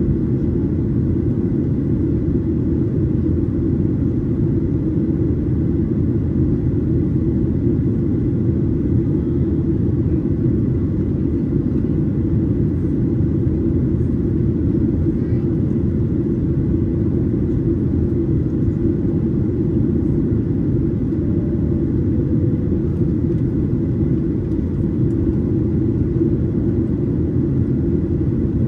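Steady low rumble inside the cabin of a Boeing 737-800 in flight: CFM56-7B turbofan engine noise and airflow, even and unbroken, with a faint steady high tone above it.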